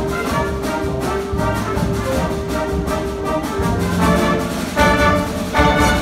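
Eighth-grade concert band of woodwinds, brass and percussion playing live. A held note sounds through the first half over a quick, even pulse, then the band plays two loud accented chords near the end.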